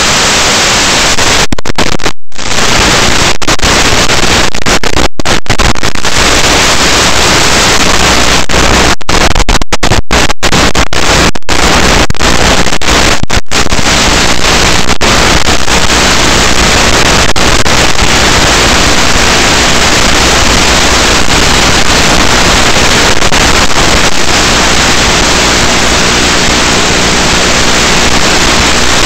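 Loud steady hiss of static on an analog FPV video link's audio channel, cut by several brief dropouts to silence in the first half.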